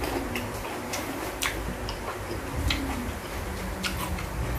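Close-miked chewing of crisp raw vegetables: sharp, irregular crunching clicks about once a second.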